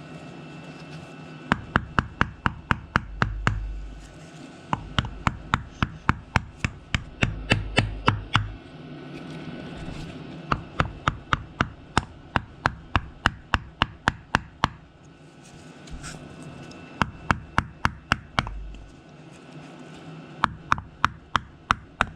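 Rapid hammer taps through a block of wood, about four a second in several runs of a few seconds, driving a thin repair sleeve onto a Subaru crankshaft's rear seal surface.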